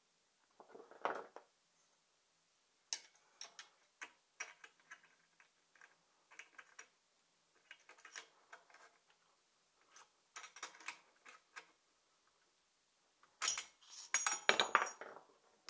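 Small metal clicks and clinks of hand tools and engine parts being handled while a spark plug is fitted into a small two-stroke engine, with a louder clatter of ringing metal near the end.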